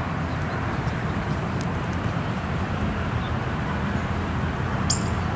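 Steady rumble of road traffic outdoors, with a brief high squeak near the end.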